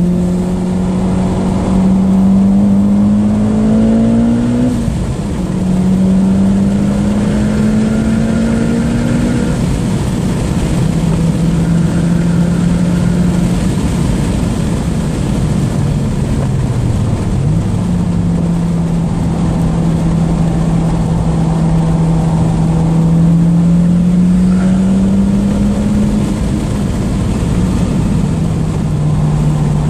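Mitsubishi Lancer Evolution X's turbocharged four-cylinder engine heard from inside the cabin on track, pulling hard with a rising note that drops at gear changes about five and ten seconds in, then running at a steadier note with a dip near seventeen seconds and another drop near the end. Tyre and wind noise run under it.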